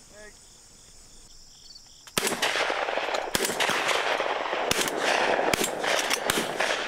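Shotgun shots at doves: several sharp reports from about two seconds in, over a continuous rushing noise. Faint crickets are heard before the shooting.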